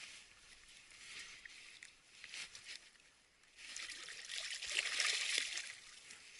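Water trickling and splashing. It swells into a louder splashing for about two seconds in the second half, then dies down.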